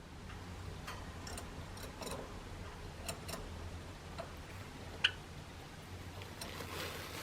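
Irregular light clicks and taps from a Java sparrow pecking agitatedly, its reaction to its owner's sneeze, with one sharper tap about five seconds in.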